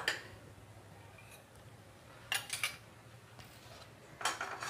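Steel spoon clinking and scraping against a glass bowl and small steel bowls while scooping whipped cream: a sharp clink at the start, then two short bursts of taps and scrapes about two and a half and four and a half seconds in.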